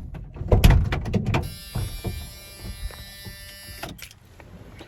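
Pickup truck door unlatching and opening with a few knocks and a thump, then the truck's door-open warning buzzer sounding steadily for about two and a half seconds before cutting off with a click.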